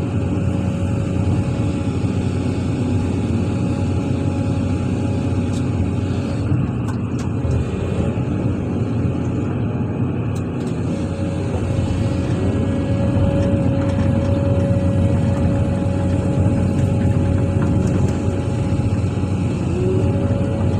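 Heavy excavator's diesel engine running steadily under load, with a steady whine above the engine hum; the sound grows a little louder partway through.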